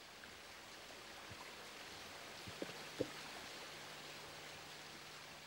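Faint rushing of stream water, swelling slightly in the middle, with two short taps about half a second apart near the middle, the second louder.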